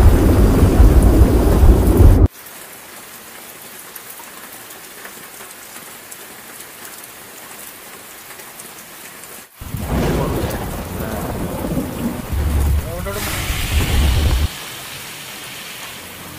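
Steady heavy rain falling, with a long rumble of thunder at the start that cuts off abruptly after about two seconds. A second long rumble comes in about halfway through and stops suddenly a couple of seconds before the end.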